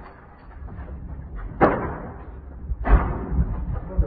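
Molotov cocktails smashing and catching fire: two sudden loud bursts about a second and a quarter apart, each fading out, and a shorter knock near the end, over a low steady rumble.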